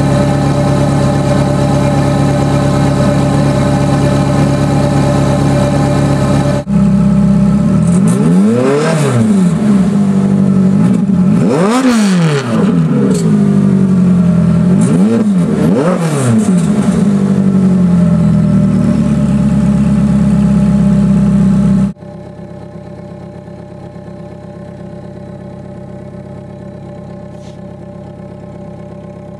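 Ferrari F430's V8 through a custom stainless dual-mode exhaust: a steady idle, then three quick revs that climb and fall back, and about two-thirds of the way in the sound drops suddenly to a much quieter idle.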